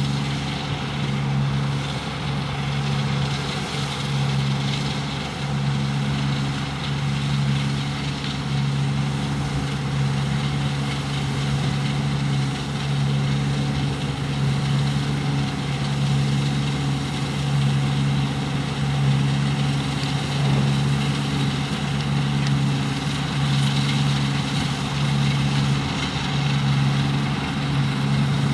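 Deutz-Fahr 6095 HTS combine harvester's diesel engine running steadily, a low drone with a slow, even pulsing and a machinery whir above it.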